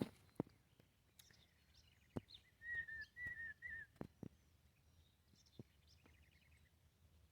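Faint songbird calls: three short whistled notes in a row about two and a half seconds in, with scattered high chirps and a quick trill later on. A few faint sharp clicks sound between them.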